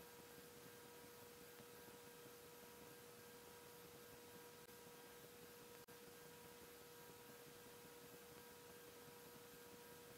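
Near silence, with only a faint steady hum.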